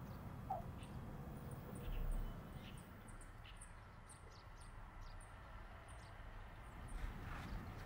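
Small birds chirping in short, scattered calls over a low, steady background rumble, with a soft low thud about two seconds in.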